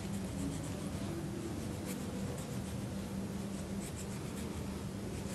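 Small knife paring the peel off a lime in a spiral: faint, scratchy cutting strokes over a steady low hum.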